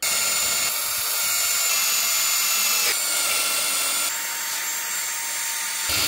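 Electric drill spinning a wire wheel brush against a cast-metal coolant housing: a steady motor whine under a dense scratchy hiss, scrubbing off the remnants of an old paper gasket. The pitch and texture shift a couple of times.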